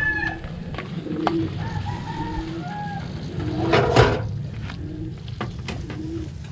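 Chickens calling in short repeated phrases, a rooster crowing among them, with a brief clatter about four seconds in.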